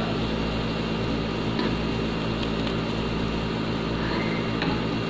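A steady, low machine hum that does not change.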